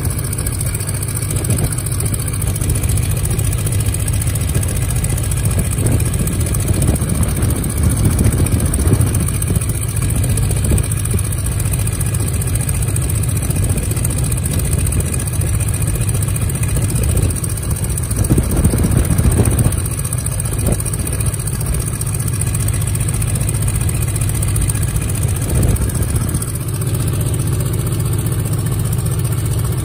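Piston engine of a 1929 Travel Air biplane running steadily with a low drone, swelling slightly now and then.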